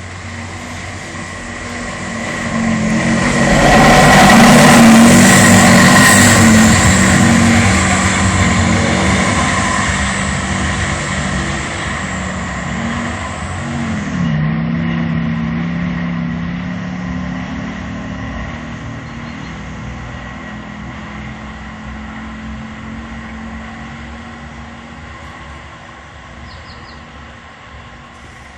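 A vehicle droning past. It builds to a loud peak a few seconds in, dips in pitch about halfway through, then fades away slowly.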